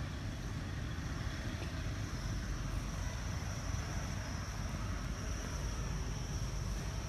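Steady outdoor background noise: a low rumble with a thin, steady high-pitched hiss above it, and no distinct events.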